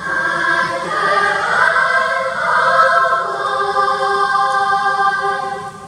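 Children's choir singing one long held chord that sets in sharply and is sustained for about six seconds, then cuts off near the end.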